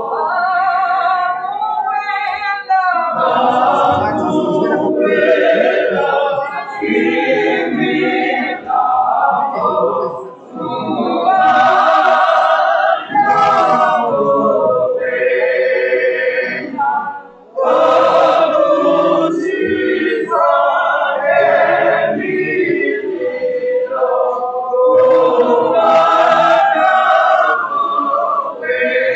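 A church congregation of men and women singing a hymn together, with short breaks between sung phrases.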